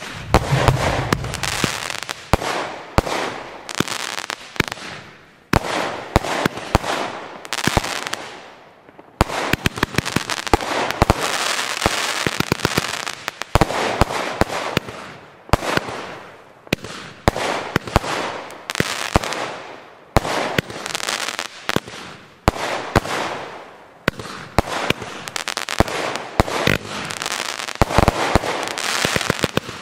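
A 50-shot consumer fireworks cake, Lesli's 'Number One', firing shot after shot. Sharp launch reports and bursts come about one to two a second, and each is followed by a fading hiss of the stars.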